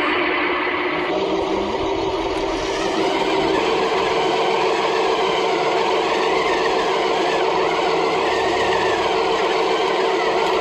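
Radio-controlled model T-34-style tank running, its sound unit giving a steady engine sound with held mechanical tones, a little louder about three seconds in.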